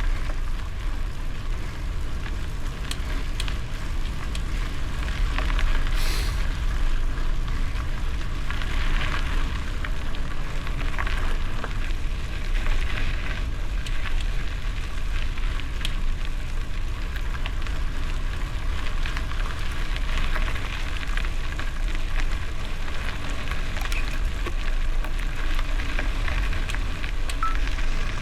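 Bicycle tyres rolling over a gravel road with a steady crackle and small clicks, over a constant low rumble of wind on the microphone.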